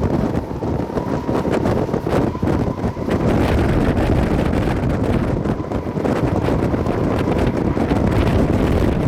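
Strong wind buffeting the microphone in gusts, a loud fluttering rumble, with a thin steady whine underneath.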